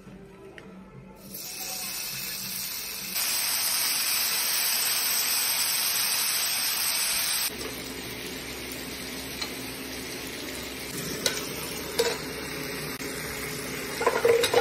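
Beef and onions sizzling on a round tabletop electric grill pan, a steady frying hiss that grows louder about three seconds in and drops back about halfway. Metal tongs click against the pan a couple of times, and there are a few sharp clatters near the end as raw sliced beef is tipped onto the grill.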